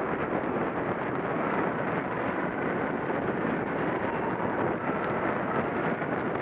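Steady wind noise on the microphone mixed with the rolling noise of a track bike's tyres on a wooden velodrome track, riding at about 22 mph.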